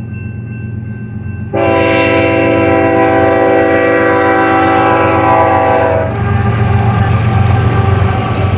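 GE ES44AC (C45ACCTE) locomotive's multi-note air horn blowing one long blast, starting suddenly about a second and a half in and cutting off about six seconds in, over the steady rumble of its GEVO-12 diesel engine. After the horn the locomotive passes close, its engine and wheels loud.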